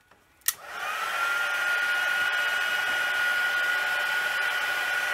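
Craft heat tool switched on with a click about half a second in, its fan spinning up to a steady high whine with rushing air as it dries freshly stamped ink on card.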